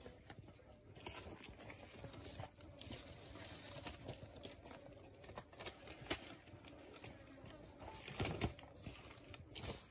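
A Komodo dragon swallowing prey on stony ground: irregular clicks, knocks and scuffing as its body and the carcass shift over loose stones, with a louder bout of scraping about eight seconds in.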